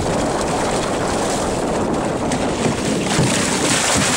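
Hooked shark thrashing at the surface beside a boat's hull, splashing water heavily, with steady wind noise on the microphone; the splashing grows stronger near the end.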